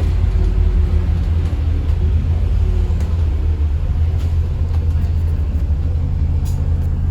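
Alexander Dennis Enviro 400 MMC double-decker bus's diesel engine running under way, a loud, steady low rumble.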